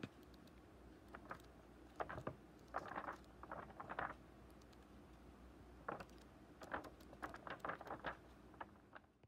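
Pages of a large photo book being handled and turned by hand, with faint paper rustles and flicks coming in two spells, about two to four seconds in and again about six to eight seconds in, over a low room hiss.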